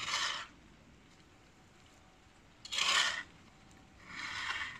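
Manure fork scraping over the ground as it rakes up straw and manure, three short scraping strokes.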